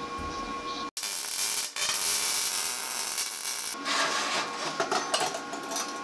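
MIG welding arc crackling and hissing for a few seconds, over a steady workshop hum, then short clinks and knocks of steel pieces being handled on a steel welding table.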